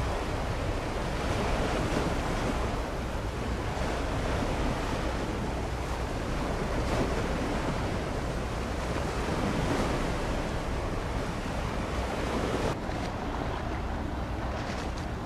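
Steady wind noise on the microphone mixed with the wash of sea water, an even rushing hiss with a deeper rumble underneath. Near the end the higher hiss drops away suddenly.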